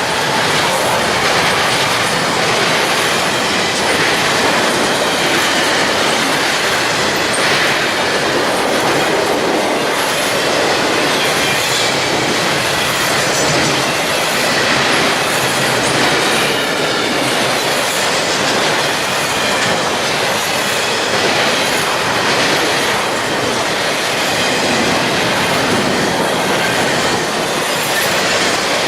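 A train rolling past at close range: a steady, loud noise of steel wheels on rail, with a faint high-pitched wheel squeal over it.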